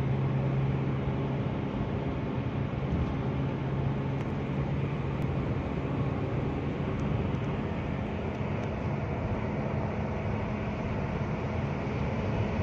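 Car engine running steadily at high revs, around 4,000 rpm, with tyre and wind noise, heard from inside the cabin at highway speed of about 110 km/h. A low steady hum carries through, weakening about halfway.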